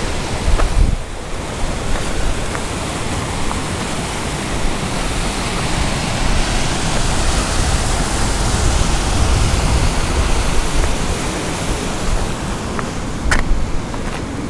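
Steady rushing of a cascading mountain stream, with wind buffeting the microphone in gusts. A few sharp clicks come near the end.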